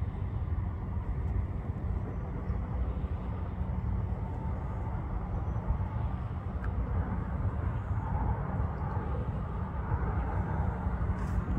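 Wind buffeting the microphone: a steady low rumble that rises and falls slightly.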